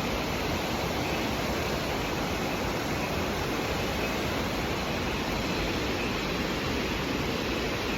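Sekumpul Waterfall's falling water close by: a steady, even rushing noise.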